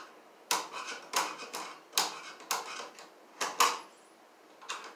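Hand screwdriver turning an outlet's mounting screw into an electrical box: a string of irregular sharp clicks and short scrapes, about a dozen in three seconds, a pause of about a second, then the clicks start again at the very end.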